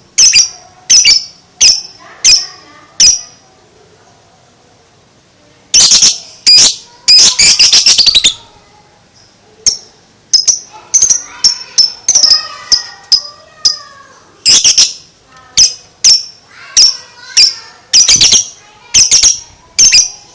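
Lovebird calling: loud, sharp, high-pitched shrieks repeated in spaced series, with a fast run of chattering calls (ngekek) about six seconds in and softer twittering between the shrieks.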